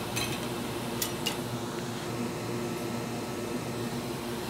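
Steady hum of a small electric fan at a microsoldering bench, with a low, even drone. A few light clicks fall in the first second and a half.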